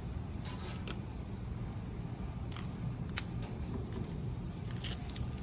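Faint handling noise: a few scattered light clicks and rustles of small objects being picked up and moved, over a steady low hum.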